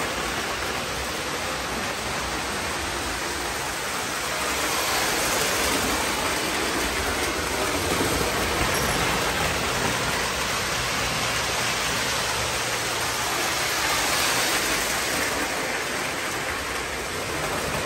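O gauge model trains running on three-rail track: a steady, even rumble and hiss with no distinct clicks.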